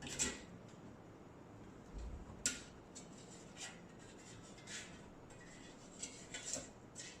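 Faint kitchen handling noises: scattered light rustles and small clicks, the sharpest right at the start and a little after two seconds in, as fish is worked into an air fryer basket.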